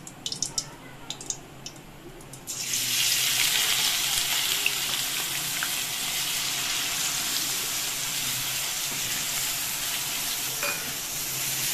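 Finely chopped onions hitting hot oil with curry leaves in a kadhai. After a few faint crackles, a sudden loud sizzle starts about two and a half seconds in and carries on steadily while they are stirred with a wooden spatula.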